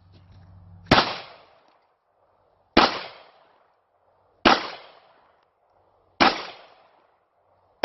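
Handgun fired in slow, steady succession: five sharp shots about 1.7 seconds apart, the last right at the end, each followed by a short echoing tail.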